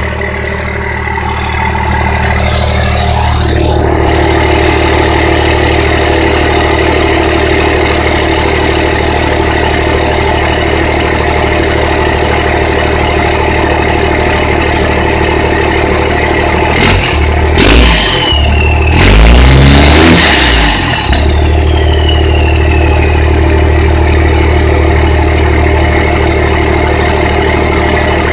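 1997 Dodge's 12-valve Cummins 5.9-litre inline-six turbodiesel idling steadily through a 4-inch straight-pipe exhaust. It is revved twice about two-thirds of the way through, first briefly and then for longer; with the second rev a turbo whistle rises, then falls away slowly as the engine drops back to idle.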